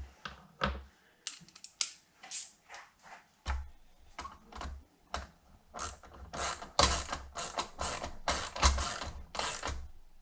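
Hand ratchet wrench clicking in quick runs as it turns a metric 10 mm nut, with the densest, loudest run of clicks in the second half.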